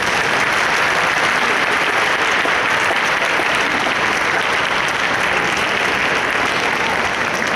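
Audience applauding steadily, a dense even clapping without a break.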